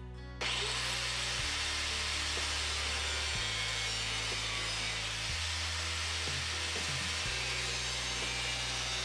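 An angle grinder cutting through thin, pitted sheet steel on a mower deck. It starts about half a second in and then runs on steadily under load.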